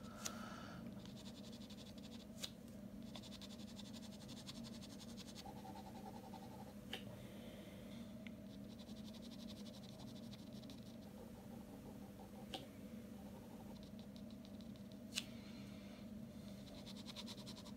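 Ballpoint pen scratching faintly on drawing paper in quick hatching strokes, in spells with short pauses, with a few light ticks.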